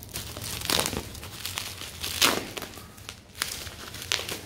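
Plastic bubble wrap crinkling in irregular bursts as hands pull and crumple it off a boxing glove.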